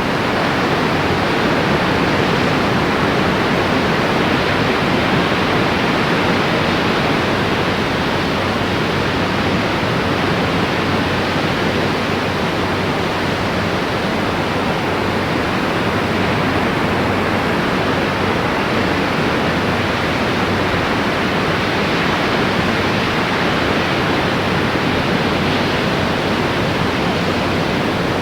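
Loud, steady rushing noise with no breaks or rhythm.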